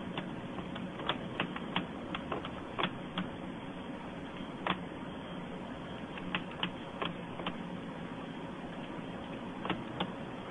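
Irregular clicks and taps on a laptop's keys and trackpad as it is operated, over a steady hum.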